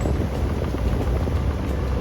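Mini excavator's diesel engine running steadily with a low rumble, with a few faint clicks over it.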